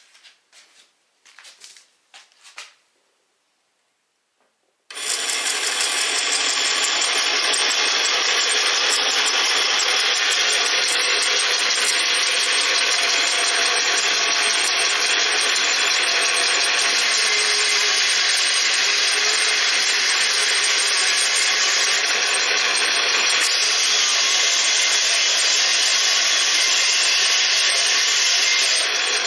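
Miniature cast-iron model band saw driven by a small DC brush motor through rubber belts and a spur-gear reduction, switched on about five seconds in and then running steadily. A few light clicks come before it starts.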